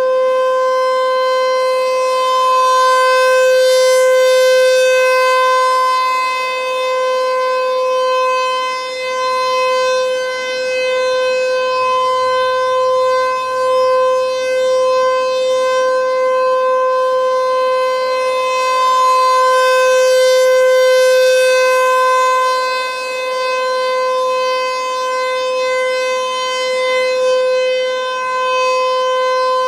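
ASC T-128 rotating outdoor warning siren sounding a steady single-pitch tone for a test. The pitch holds level while the sound swells and fades as the horn turns, loudest about four seconds in and again about twenty seconds in.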